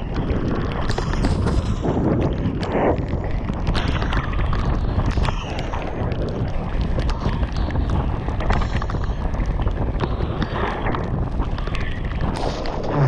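Mountain bike ridden fast down a wet, muddy trail: wind buffeting the helmet-camera microphone over the hiss and splash of tyres through mud and water, with frequent short clacks and knocks from the bike over rough ground.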